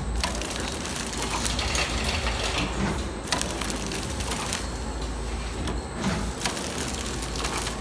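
Automatic epoxy putty moulding, cutting and packing machine running: a steady mechanical clatter over a low hum, with sharp clicks now and then as the cutting heads work.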